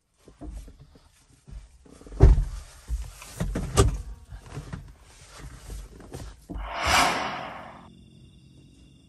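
Thuds and clunks of a person moving about inside a car and handling the door as he gets ready to step out, the sharpest knocks about two and four seconds in. Near the end a rush of noise swells and fades, followed by faint steady insect chirring.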